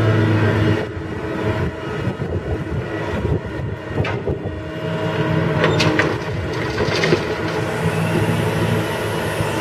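Komatsu PC150 hydraulic excavator's diesel engine running under load as it swings its bucket over a dump truck, the steady engine hum turning rougher about a second in and settling again later. A few sharp clanks come partway through.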